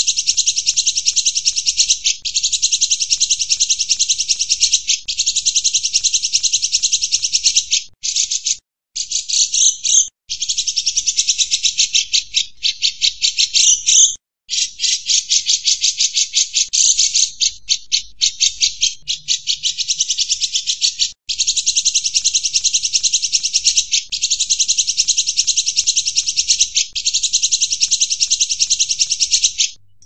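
Cucak jenggot bulbul singing in its rapid 'gacor' style: a high, fast, rattling trill delivered in runs of two to three seconds with short breaks between them.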